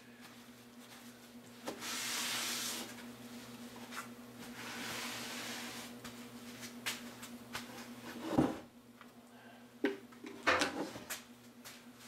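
Hands rubbing and sliding over a plywood panel in two long scuffing strokes, then several light knocks of wood and a tape measure being set down on the bench.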